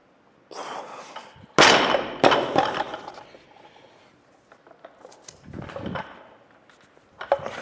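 A 70 kg barbell loaded with bumper plates is dropped from overhead onto the lifting platform: a loud bang about a second and a half in, then a second bang as it bounces. About six seconds in a quieter knock comes from the next snatch as the bar and feet land, and another loud drop begins right at the end.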